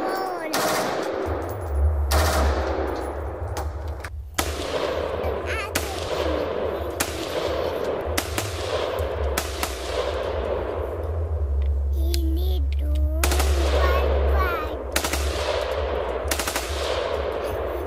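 Gunfire sound effects: a string of shots and short bursts, each with a long echoing tail, over a low rumble.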